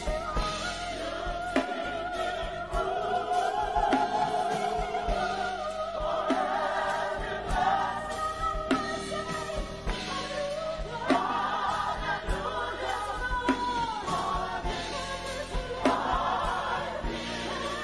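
Gospel choir singing together, with a steady beat under the voices.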